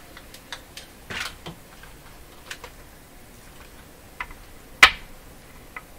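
Light clicks and taps of small parts handled and set down on a wooden workbench, the old wax capacitors taken out of a radio. Five or six scattered clicks, with one sharp knock near the end.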